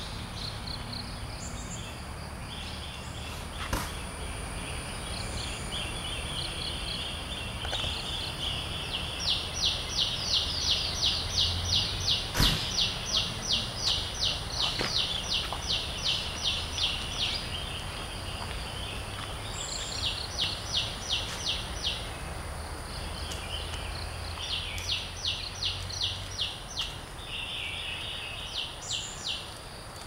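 Forest ambience of insects and birds: a steady high drone underneath, and runs of rapid, evenly spaced chirps at about three a second that start and stop several times. One sharp click comes about midway.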